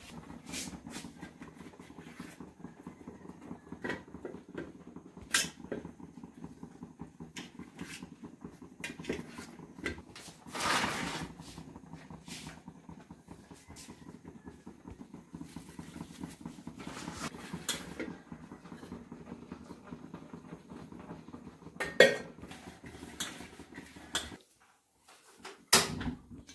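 Scattered clicks and clinks of a knife and fingers on a steel plate as a block of paneer is cut into cubes and handled, over a steady low hum. There is a longer scraping rustle about eleven seconds in, and a single sharp clack near the end.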